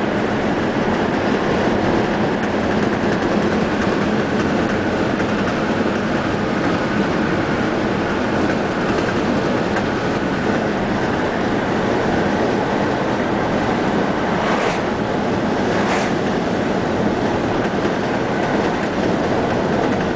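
Steady road noise inside a moving car's cabin: tyres rolling on asphalt with the engine running at cruising speed. Two short rushes of hiss come a second apart about two-thirds of the way through.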